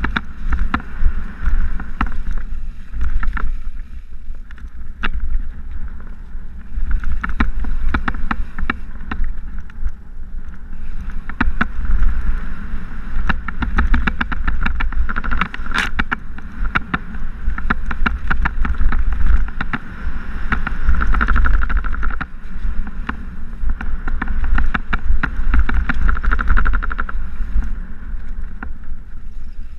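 Mountain bike descending rough dirt singletrack at speed: a steady wind rumble on the action camera's microphone, with the bike's constant rattling and many sharp knocks as it runs over bumps.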